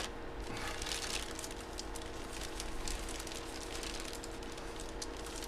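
Faint handling noise, light rustles and scattered small clicks, over a steady low electrical hum.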